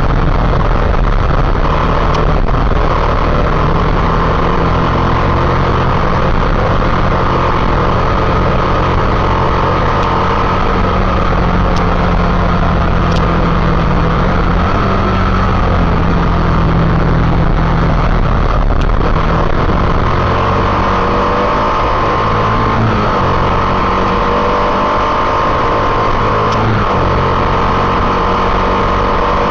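Motorcycle engine running steadily while riding, its pitch shifting a little around two-thirds of the way through, under a constant rushing noise.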